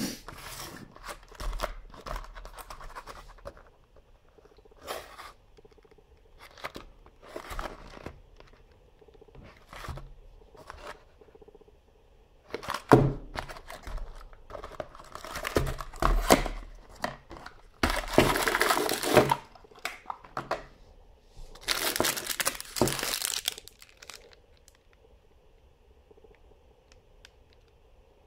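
Small cardboard knife box handled and opened, with scattered taps and scrapes of card. These are followed by two longer crinkling rustles of wax paper as the wrapped knife is drawn out.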